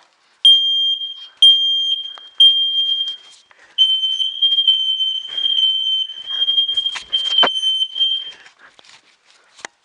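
Household smoke alarms sounding on a test: a shrill, high beep in three separate pulses, then one long unbroken tone that cuts off about eight seconds in. A couple of sharp clicks come just before it stops.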